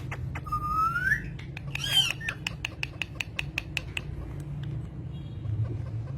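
Pet green parrot calling: a rising whistle, a loud squawk about two seconds in, then a quick run of clicking chirps.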